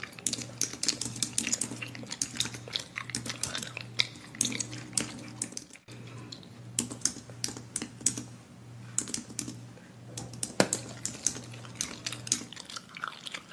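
Rapid, irregular clicks and taps like typing, over a faint steady low hum.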